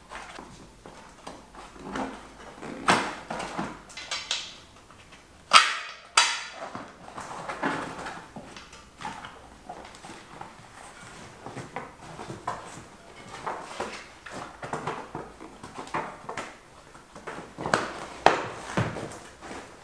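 Knobby bicycle tyre being worked onto a wheel rim by hand: irregular rubber rubbing and squeaking against the rim, with two sharp snaps close together about six seconds in.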